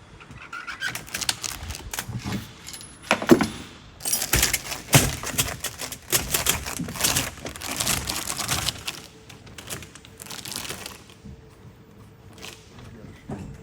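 Broken pieces of an engine block being picked through and handled: a busy run of clinks, rattles and knocks, loudest around three to five seconds in and dying down near the end.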